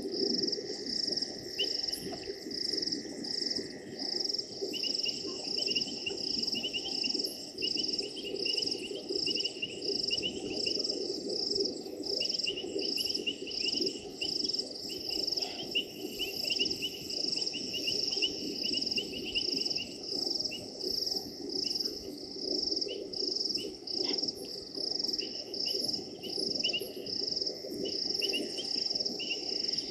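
Night chorus of frogs and insects: a steady, rapidly pulsing high chirring, with a lower fast trill that comes and goes, over a dense low drone.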